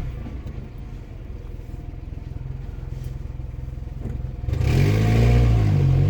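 Car engine idling with a rough, fast pulse, then revving up about four and a half seconds in as the car accelerates away. The car runs a little loud.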